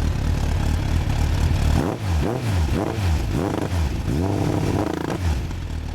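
Suzuki Bandit 1200S carburetted inline-four idling through an aftermarket Yoshimura exhaust, then revved in about five quick throttle blips, each rising and falling, before settling back to idle. The engine is running smoothly and is fairly quiet.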